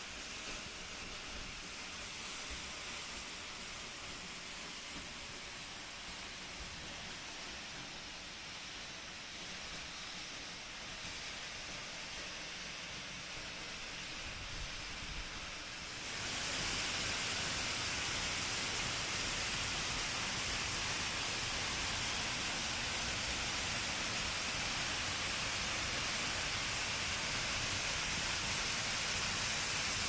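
Steady rushing hiss of a tall waterfall pouring into its plunge pool, quieter at first from under the rock overhang behind the falls, then louder and hissier from about halfway through.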